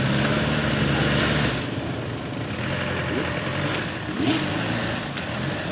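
A four-wheel-drive recovery vehicle's engine revs hard as it pulls a tow strap to drag a swamped Vauxhall Frontera out of deep water. The revs ease off about one and a half seconds in, then build again.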